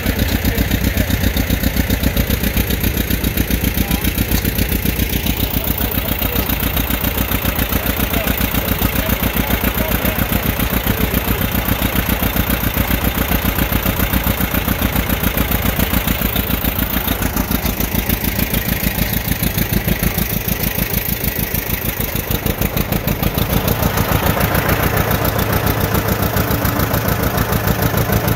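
1960 John Deere 730 LP tractor's two-cylinder propane engine running steadily with an even, fast beat, turning a flat belt to a Prony brake.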